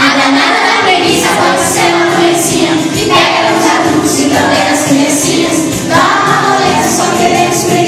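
Upbeat children's song played loudly, with a group of children's voices singing along.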